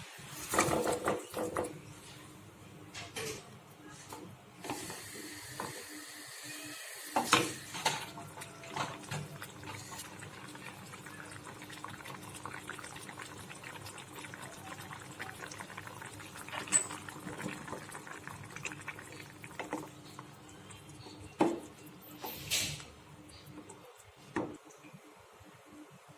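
Kitchen tap running with a steady hiss of water, with a few knocks and clinks of kitchenware; the loudest knocks come just after the start and about seven seconds in.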